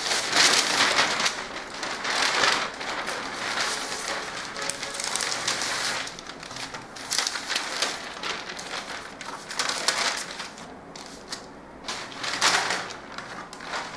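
Large sheet of brown pattern paper rustling and crackling as it is handled, spread out and flattened, with paper pattern pieces laid on it. Loudest in the first few seconds, then quieter rustling broken by a few sharper crackles.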